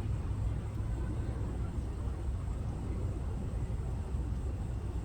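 Steady low rumble of outdoor background noise, with no distinct calls or events standing out.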